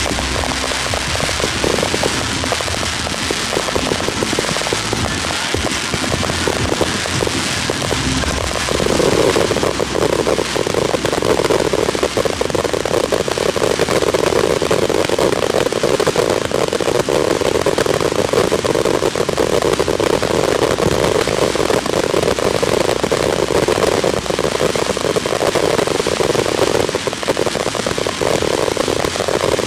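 Fireworks finale barrage: a continuous crackle of many shells bursting in quick succession. It becomes denser and louder about nine seconds in and stays that way. The tail of a pop song plays under the first several seconds.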